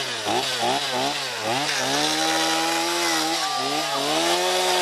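Two-stroke gas chainsaw revved in quick throttle blips, then held at high revs as it cuts into a wooden skateboard deck, its pitch sagging briefly under load before picking up again.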